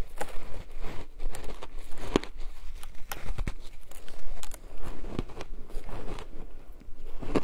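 Close-miked biting and chewing of a mouthful of colourful shaved ice: irregular crisp crunches and crackles as the ice breaks between the teeth.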